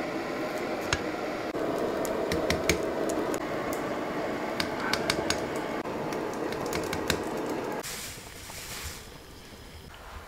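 Water boiling hard in a wok of squash pieces: a dense bubbling with scattered sharp clicks, which drops suddenly to a much quieter level about eight seconds in.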